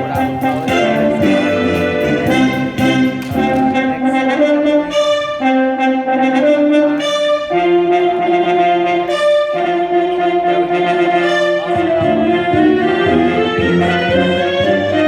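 Music led by brass instruments, playing a melody of long held notes.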